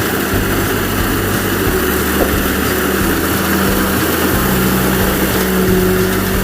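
Rice combine harvester running, a loud steady engine drone with a constant hum.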